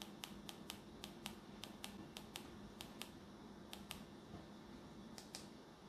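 Faint clicks of small plastic buttons pressed one after another, often in quick pairs, about two or three a second, with a pause near the end before a last pair, over a low steady hum.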